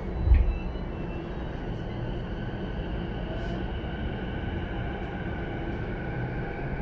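Mitsubishi IGBT-VVVF inverter and traction motors of a JR East E233-1000 series train whining as the train pulls away slowly: steady high inverter tones with a lower motor note that rises slowly in pitch. A heavy low thump comes just after the start.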